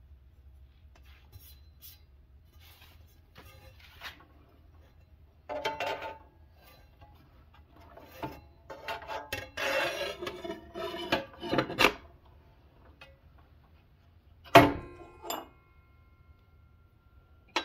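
A steel saw blade is handled and fitted onto a chop saw's arbor inside its metal guard, with scraping and light clattering of metal. Near the end comes one sharp clack, then a lighter one.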